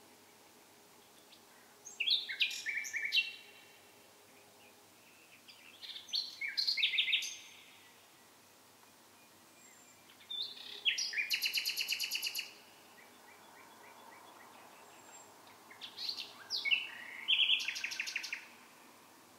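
A songbird singing at night in four short, loud phrases a few seconds apart. Each phrase is a quick run of rapidly repeated notes and trills, some quite high.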